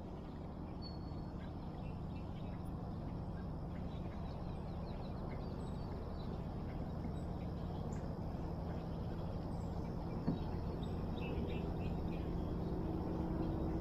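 Open-water ambience: faint scattered bird calls over a steady low hum, with one soft click about ten seconds in.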